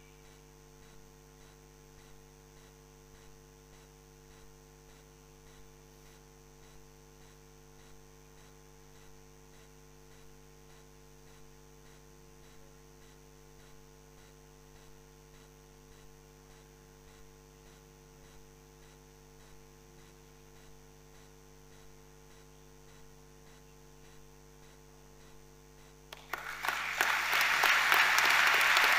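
Steady electrical mains hum in an otherwise hushed hall, then, about three seconds before the end, the audience breaks into applause as a minute's silence ends.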